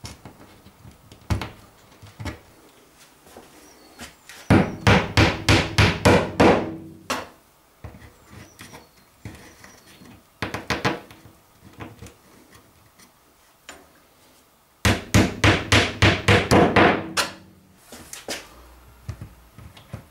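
Hammer tapping plastic wall plugs into drilled holes in a wall: two quick runs of about a dozen sharp strikes each, roughly five a second, with a short burst of taps between them and a few single knocks.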